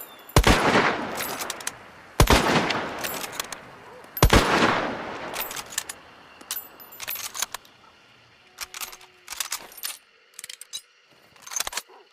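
Mosin-Nagant M1891 bolt-action rifle fired three times, about two seconds apart, each shot with a long echoing tail, with the metallic clicks of the bolt being worked between shots. From about halfway on, only a series of quieter metallic clicks and clacks of the rifle's action being handled.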